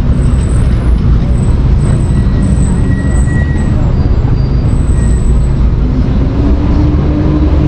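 Loud, steady city street traffic noise, a dense low rumble of passing vehicles.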